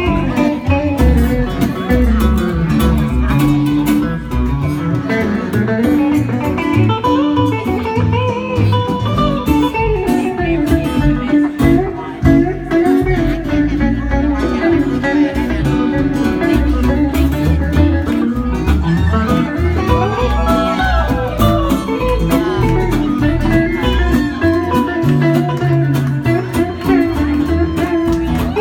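Acoustic guitar played live, an instrumental passage of picked and strummed notes with no singing.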